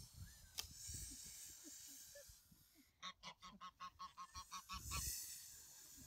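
Domestic goose honking in a rapid run of about a dozen short honks, roughly six a second, starting about halfway through. A brief rush of noise follows just after.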